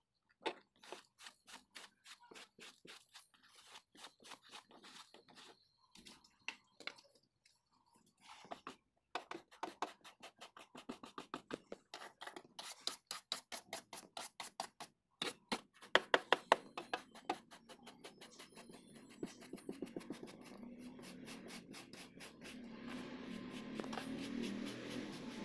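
A hand brush scrubbing the car's floor carpet in quick back-and-forth strokes, several a second, loosening dust from the corners. The strokes get louder about two-thirds of the way in, then blur into a steadier rustle near the end.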